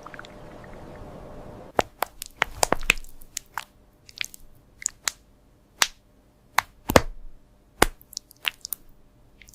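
A series of irregular sharp crunches and clicks, about twenty in all, starting about two seconds in. The loudest comes about seven seconds in.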